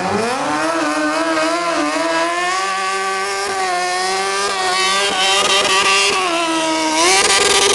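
Stunt motorcycle's engine held at high revs through a rear-tyre burnout, the back wheel spinning against the asphalt and smoking. The revs climb sharply at the start, hold high with small wavers, and climb again near the end.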